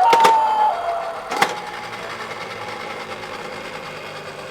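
Toy ambulance's electronic siren: a high tone that slides down in pitch and stops with a click about a second and a half in, followed by a steady low mechanical whirr.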